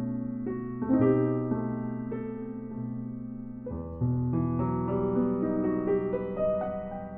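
Solo piano played slowly on a digital keyboard: held chords with a melody line over them. A new chord is struck about a second in and again about four seconds in, and each is left to ring and fade.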